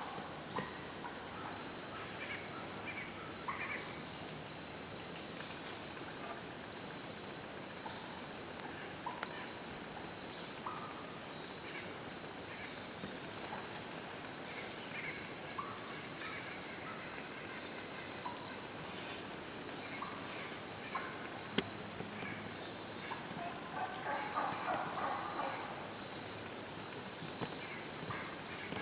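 Dawn insect chorus of crickets: a steady high trill, with a quieter chirp repeating evenly about every second and a half. Short bird chirps come and go, most of them a little past the middle.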